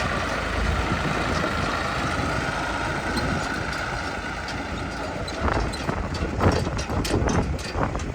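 Heavy machine's diesel engine running, with a steady high tone over it that fades about five seconds in. After that come a series of sharp knocks and clanks.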